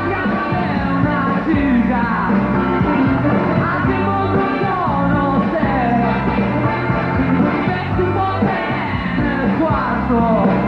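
Rock song: a band playing with a singer's voice over it.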